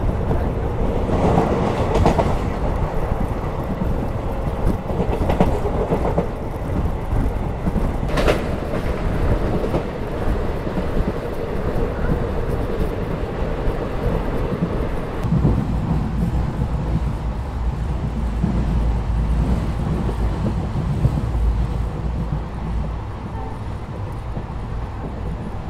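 Passenger train coaches running along the track: a steady rumble with wheels clattering over the rail joints, and a sharp clank about eight seconds in, heard from the open doorway of the moving train.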